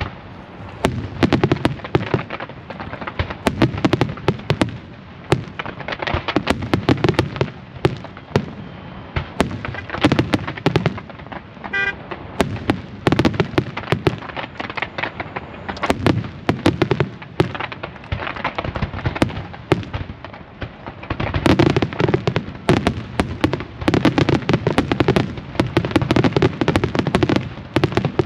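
Fireworks display: a continuous barrage of overlapping bangs and crackles, swelling into loud clusters every second or two.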